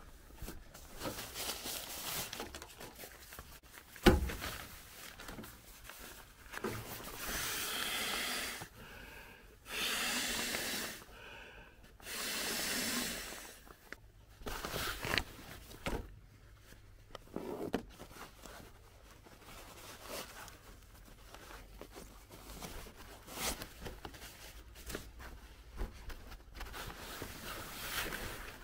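Handling and rustling of a nylon Klymit Static V sleeping pad, with one sharp knock about four seconds in. Then three long breaths are blown into the pad's valve to inflate it, followed by more fabric rustling and handling as the pad is laid out.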